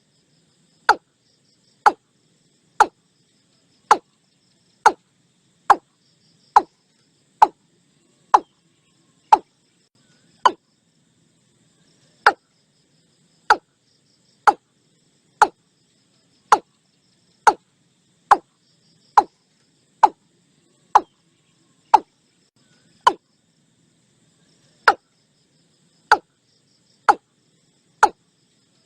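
Watercock calling: a series of short, sharp single notes about one a second, with two brief pauses, over a faint background hum.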